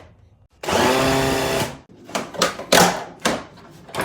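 Power drill-driver running for about a second with a steady whine as it backs out a screw, then several short clicks and knocks of parts being handled.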